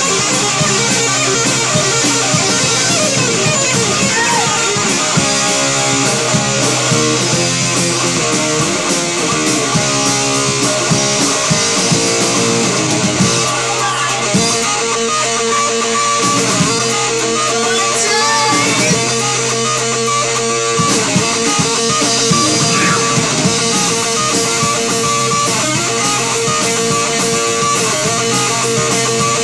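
Rock music: electric guitar playing over bass and drums, steady and loud.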